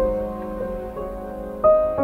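Background music: a slow, gentle piano melody, four notes struck and left ringing over about two seconds.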